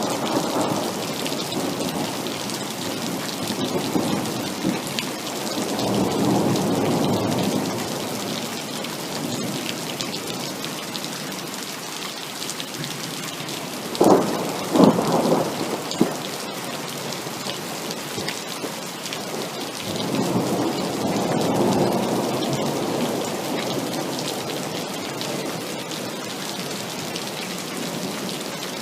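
Heavy rain falling steadily, with thunder rolling in long low rumbles several times. About halfway through comes a closer, sharper thunder crack in two or three quick loud strikes.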